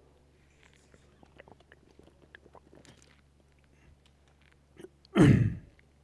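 Faint scattered clicks over the first three seconds. About five seconds in comes a short, loud vocal sound from a man that falls steeply in pitch.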